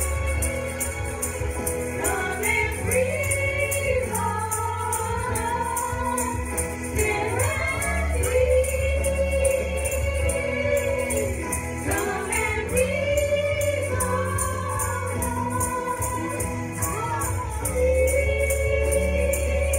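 Gospel song: a small group of young voices singing into microphones over music with a steady bass and a regular beat.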